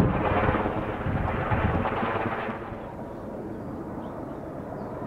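Kaman K-MAX helicopter's intermeshing twin rotors beating overhead in a rapid, heavy chopping pulse, the odd rotor sound of this counter-rotating design. A little past halfway it drops sharply quieter as the helicopter moves away.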